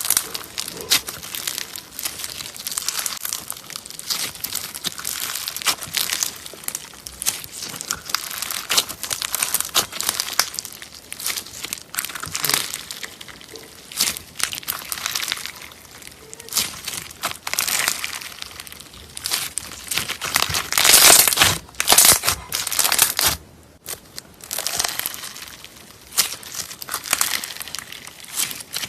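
Slime being squished and worked by hand: a continuous stream of sticky crackling clicks and pops. It grows loudest about three quarters of the way through, then briefly drops away.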